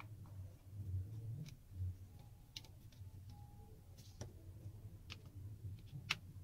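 Screwdriver working the small screws inside a Penn Affinity 8000 spinning reel's body: faint, sharp metal ticks and clicks about once a second, with a few soft handling knocks in the first two seconds.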